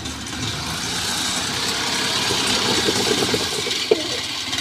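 Rice combine harvester running in the paddy, its engine and threshing machinery giving a steady, dense mechanical noise.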